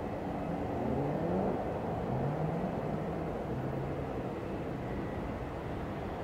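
Boeing 767-300 jet engines on final approach: a steady distant rumble, with tones that glide up and down in the first couple of seconds.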